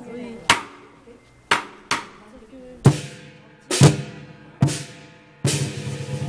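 Chinese lion dance percussion: single loud crashes of cymbals with drum strokes, spaced about a second apart, each ringing away, then a fast run of drum beats near the end.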